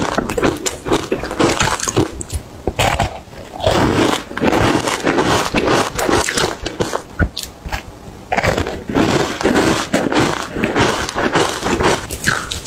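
Close-miked biting and chewing of frozen matcha ice chunks, rapid crunching in quick repeated chews with a lull in the middle.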